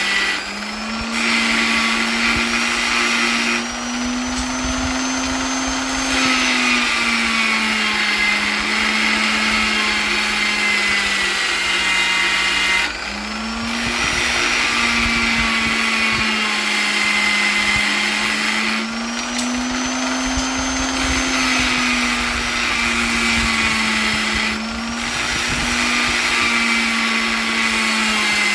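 Electric polisher motor running continuously: a steady whirring hum over a loud hiss, its pitch drifting slowly up and down, with the hiss dipping briefly about five times.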